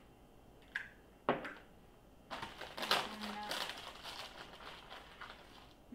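Crinkling and crunching as Oreo cookies are crumbled by hand over the whipped cream, a dense run of crackles and clicks lasting about three and a half seconds. Before it come two sharp knocks as the whipped-cream can is set down on the table.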